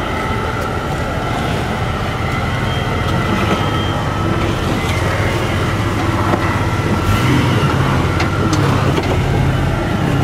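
Jeep Wrangler engine running at low revs as it crawls slowly over rock, heard from inside the cabin, with a few sharp clicks scattered through it.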